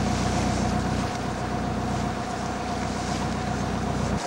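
Steel schooner's inboard engine running steadily under way, a low even hum with a steady whine above it, and wind and water noise on the microphone.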